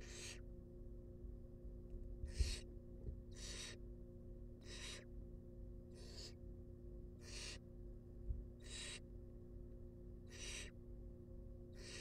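Barn owl nestlings giving their rasping, hissing begging calls, short hisses repeated about every second and a half, over a steady low electrical hum. Two brief low thumps, the loudest moments, come about two and a half seconds and eight seconds in.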